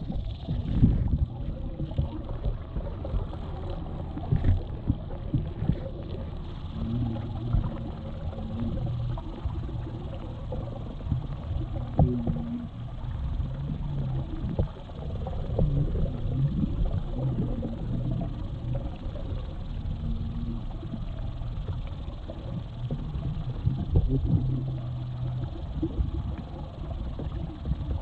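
Underwater sound picked up by a GoPro in its waterproof housing as it is moved through the water on a pole: a muffled low rumble with frequent knocks and thumps, and short low hums that come and go.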